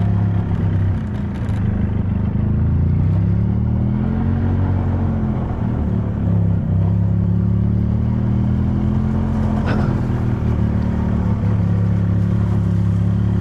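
Golf cart engine running as the cart drives, its pitch rising and falling twice as it speeds up and slows. A single knock sounds near the middle.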